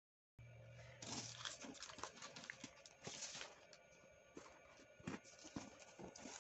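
Origami paper being folded and creased by hand on a wooden tabletop: crinkly rustles of the sheet with short taps and clicks as fingers press the fold flat. It starts about half a second in.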